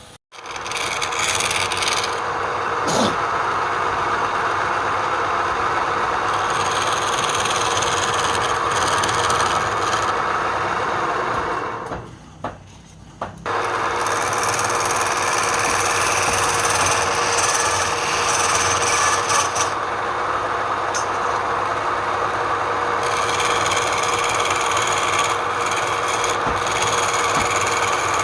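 Woodturning on a lathe: a tool scraping against the spinning wood in a steady, rasping run. The sound drops out for about a second and a half near the middle, then resumes.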